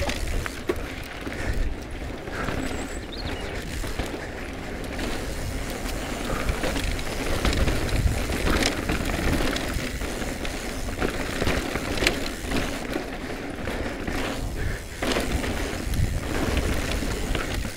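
A Cube Stereo Hybrid e-mountain bike descending a dirt forest trail at speed: a steady rough rumble of knobby tyres over dirt and roots, with the rattle of the bike and several sharp knocks as it hits bumps.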